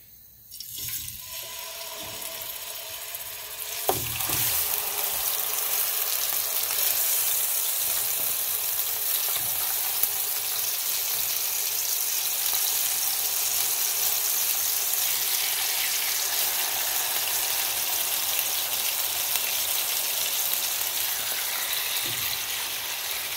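Pork slices sizzling in hot sunflower oil in a frying pan as they are laid in one after another. The sizzle builds from a faint start, jumps up sharply with a light knock about four seconds in, then holds as a steady hiss.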